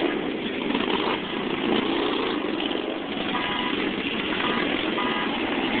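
Engines of a procession of motorcycles and cars passing by in a steady mixed rumble, with three short horn toots in the second half.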